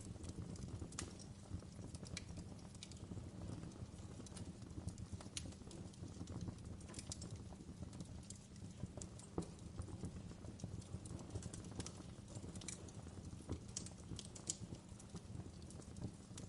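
Wood fire burning in a fireplace: irregular sharp crackles and pops over a low, steady rumble of the flames.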